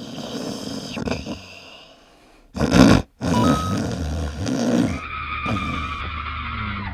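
A person snoring, with rough rasping breaths, mixed with edited sound effects: a loud brief burst about two and a half seconds in, and over the last two seconds a sustained whistle-like tone that sinks slightly in pitch.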